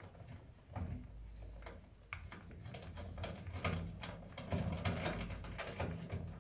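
Screwdriver with an 8 mm socket tip turning out the screws that hold an oven heating element: irregular metal clicks and ticks, coming thicker in the second half.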